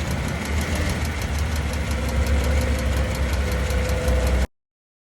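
Exhaust and running noise under a Dodge Caravan, picked up close to the exhaust flexible pipe after the catalytic converter while driving: a steady low rumble with a fast, even ticking over it. This is the grinding sound the owner traces to a failing flex pipe. It cuts off suddenly about four and a half seconds in.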